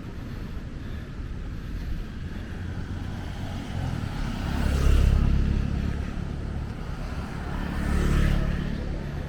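Surf breaking on a beach: two waves swell up and wash in, about five and eight seconds in, each rising and fading over a couple of seconds over a low rumble.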